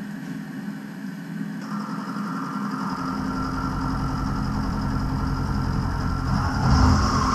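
Milling machine spindle running at 650 rpm with a steady motor hum. About a second and a half in, a 4-flute slot drill starts cutting a 5 mm deep climb-milling pass in a mild steel block, adding a steady high-pitched cutting noise that grows louder.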